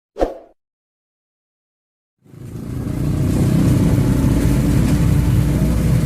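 A brief hit right at the start, then silence; a little over two seconds in, a heavy diesel engine sound fades in and runs steadily with a deep rumble, typical of an excavator working.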